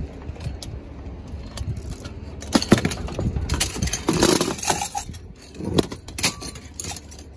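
Metal floor-lamp poles clanking and clinking against other scrap metal as they are laid on a wooden trailer deck, a string of sharp knocks that is busiest a few seconds in. A steady low rumble of an idling vehicle runs underneath.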